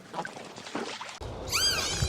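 Faint rustling, then about a second and a half in a quick run of high-pitched squeaky calls from an animal, each rising and falling in pitch.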